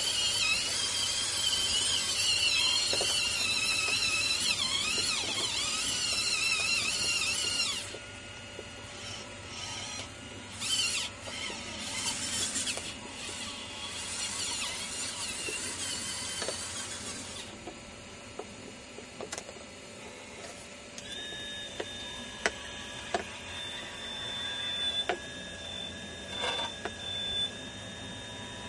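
Radio-controlled model excavator's electric motors whining as the boom and bucket move, the high pitch wavering with the controls. About eight seconds in it drops to quieter stop-start bursts, then settles into a steady high whine with scattered clicks.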